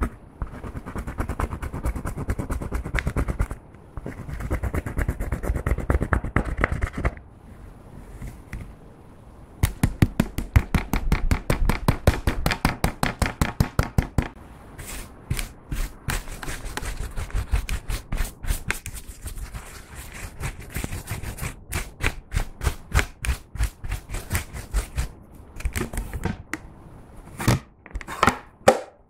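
Pressed eyeshadow being crushed and scraped out of a plastic palette with a plastic tool: gritty scratching and clicking. Partway through come fast, sharp clicks, then slower single taps as the powder is knocked out, with a few louder knocks near the end.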